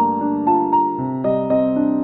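Background music: a soft keyboard melody, like a piano, with notes struck every quarter to half second.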